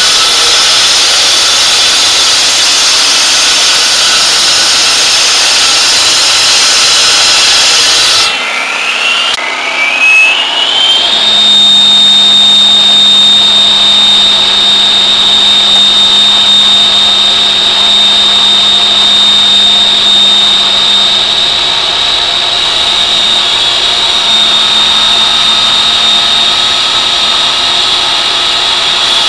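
Petrol brick saw with a 4.5 hp Subaru Robin engine, its water-cooled 16-inch diamond blade cutting brick and concrete block: a loud gritty hiss of blade on masonry over the engine. A little past eight seconds the sound dips, then a whine rises in pitch and holds steady and high through the rest, with the engine running underneath.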